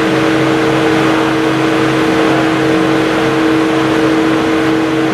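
Car engine running at a steady speed under heavy road noise, its pitch holding level throughout.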